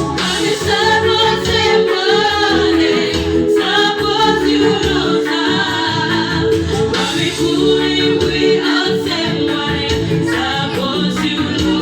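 A voice singing a melody over steady keyboard accompaniment.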